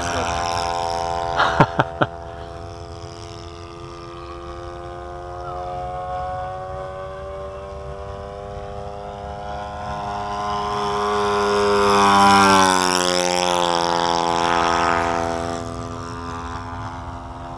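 Thunder Tiger 91FS four-stroke glow engine of a model P-51 Mustang running steadily in flight, its drone fading, then swelling to a close pass about twelve seconds in, where the pitch drops as it goes by. Three sharp clicks about two seconds in.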